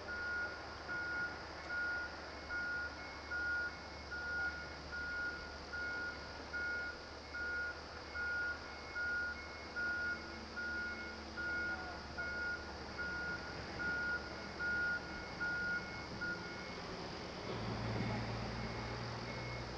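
A construction vehicle's reversing alarm beeping steadily, a bit more than once a second, until it stops near the end. A diesel engine then rises in the last few seconds.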